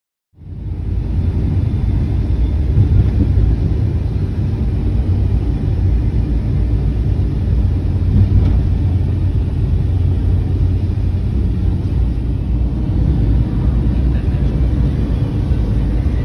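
Steady low rumble of a moving vehicle heard from inside its cabin, starting about half a second in.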